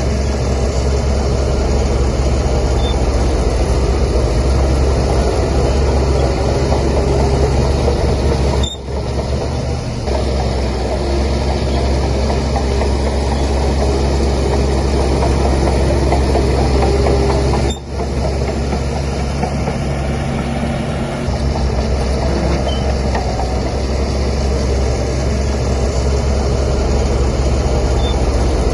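Heavy diesel engine of a bulldozer running steadily with a strong low rumble. The sound dips briefly twice, about nine and eighteen seconds in.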